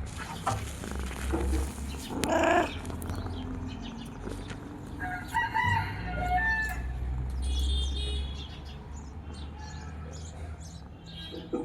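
Several pitched animal calls over a steady low hum: a loud call about two and a half seconds in, more around five to seven seconds in, and higher chirps near eight seconds.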